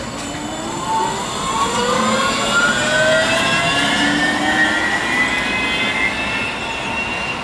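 Neoplan Youngman JNP6120GD trolleybus accelerating away, its electric traction motor whining in several tones that rise steadily in pitch together, over a steady hiss of tyres and road.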